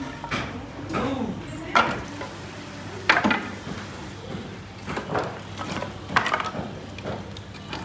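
Split firewood planks knocking and clattering as they are handled and pushed into the fireboxes under wood-fired pilaf cauldrons: several sharp knocks a second or so apart, over a steady low hum.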